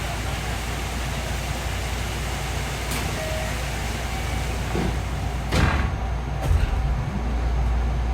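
Running noise of a JR West 207 series electric train heard inside the car, a steady rumble of wheels on rail. Sharp clunks come about three seconds in and twice more past the middle, the loudest a little after halfway.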